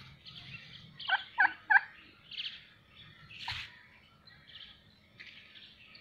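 Domestic turkeys calling: three short, quick calls about a second in, another louder call about halfway, and softer scattered calls.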